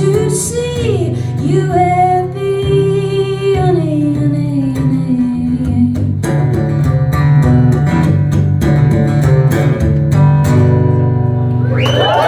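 Live acoustic guitar strumming under a woman's voice holding long, gliding wordless notes as the song ends; near the end the audience starts cheering.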